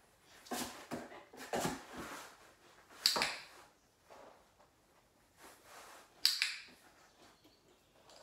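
Two sharp clicks of a dog-training clicker, about three seconds apart, marking a puppy lying down in a cardboard box. Softer rustling from the puppy shifting in the box comes before the first click.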